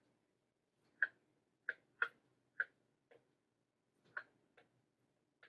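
Light, irregular clicks of a stylus tip tapping down on a tablet screen as handwritten characters are written, about eight taps roughly half a second apart.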